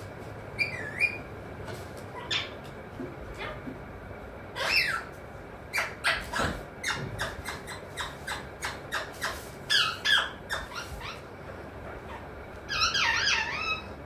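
Alexandrine parakeet giving short, bending squawks and chatter in four brief bouts, with many sharp clicks between them.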